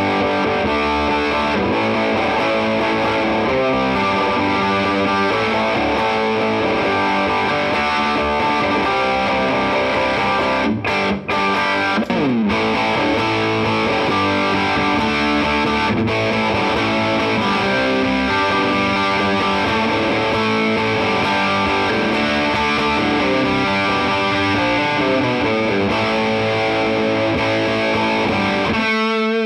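Electric guitar played through a Mesa/Boogie TransAtlantic tube amp with an overdriven tone: a busy rock riff of chords and single notes, with a few short breaks and a sliding drop about twelve seconds in, ending on a chord left to ring.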